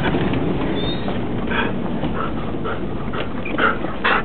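A dog whimpering in short, repeated bursts over the steady low rumble of a car's engine and road noise inside the cabin.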